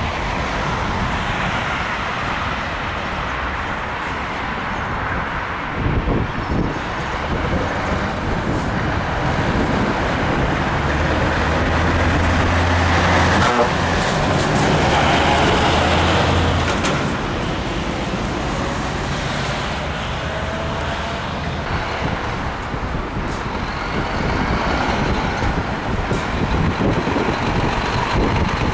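Heavy trucks driving past with steady engine and tyre noise. One passes close in the middle, where its low engine drone is loudest.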